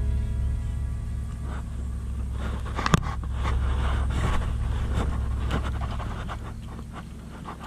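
Oil palm fronds and grass scraping and rustling as someone pushes through them with a fishing rod, with a sharp click about three seconds in, over a steady low rumble.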